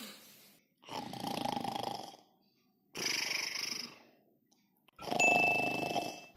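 A person snoring: the tail of one snore, then three snores about two seconds apart, each lasting a little over a second. The last snore has a thin, high whistle running through it.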